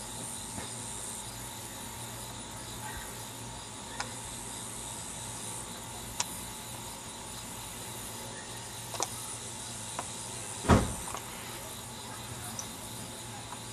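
Steady outdoor background hiss and low hum with no siren sounding, broken by a few sharp clicks and one louder thump about ten and a half seconds in.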